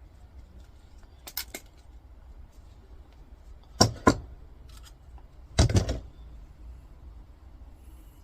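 Small metal scrap parts being handled during a teardown: a few sharp clicks and clinks, coming in pairs, with a short clatter about two thirds of the way through.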